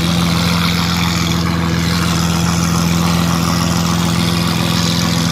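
Lamborghini Aventador's V12 engine idling steadily.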